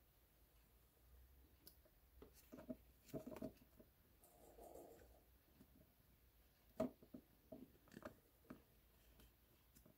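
Near silence with faint, irregular clicks and light taps of hands handling a homemade toy karakuri clock in its clear plastic cover. A few come close together around three seconds in and the sharpest near seven seconds, with a soft rustle in between.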